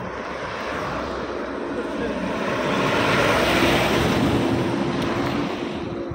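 Two cars driving past one after the other on an asphalt road, the rush of tyres and engines swelling as each goes by, loudest about halfway through, with a steady engine hum underneath.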